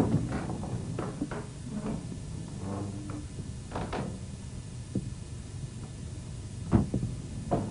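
Wooden door opening, with a handful of sharp wooden knocks and thuds spread across the few seconds, the loudest right at the start and another near the end, over a steady low hum.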